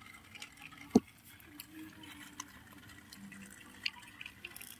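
Plastic toy train wagons being handled and coupled together: light clicks and taps of hard plastic, with one sharper click about a second in.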